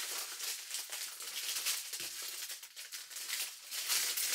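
Small plastic bags of diamond-painting drills crinkling and rustling as they are handled and laid out by hand, with many quick crackles throughout.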